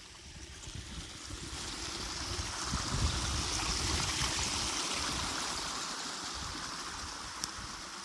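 Waterfall rushing: a steady hiss of falling water with a low rumble underneath, swelling over the first few seconds and easing slightly toward the end.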